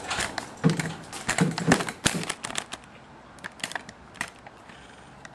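Handling noise: a quick run of clicks and light knocks, with a few louder knocks in the first couple of seconds, thinning out to scattered clicks and stopping a little past the middle.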